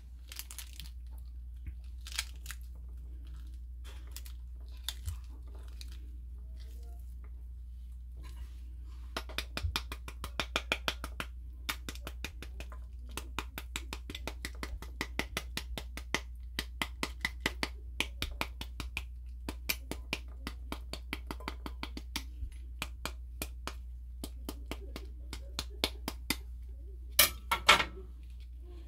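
A knife tapping the back of a halved pomegranate held cut-side down over a ceramic plate, knocking the seeds out onto the plate. It makes a long run of quick, light taps, several a second, with a few scattered clicks before the tapping starts and some louder knocks near the end.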